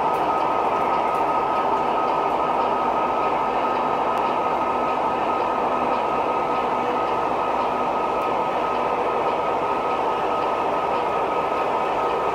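O gauge model diesel locomotives running on three-rail track: a steady rumble of motors and wheels with a steady high whine over it.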